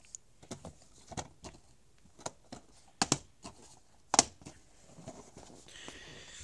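Plastic DVD cases clicking and clacking against each other as they are stacked by hand: a scatter of light clicks, with two sharper clacks about three and four seconds in. Near the end there is a soft rustle of handling.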